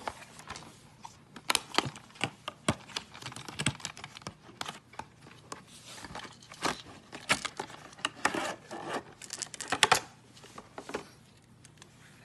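Stiff clear plastic packaging being handled and opened: irregular crinkling, snapping and scraping of the plastic box and card insert as a lure is slid out. The clicks come thickest and loudest near the end, then die away.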